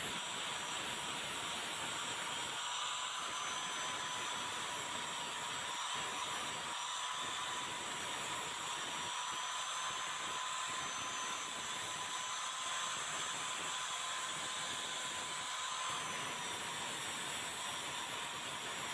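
Angle grinder running with a steady high whine, its abrasive disc grinding the rusted steel of locking pliers. The grinding noise dips briefly every second or two.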